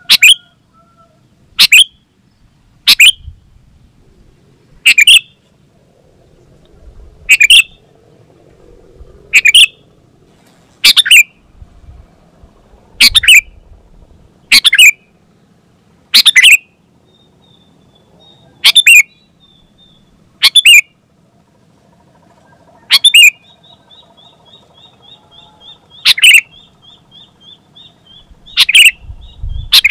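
Sooty-headed bulbul (kutilang) calling: short, loud, high notes repeated every one and a half to two and a half seconds. In the last quarter a faint, fast chattering trill runs between the calls.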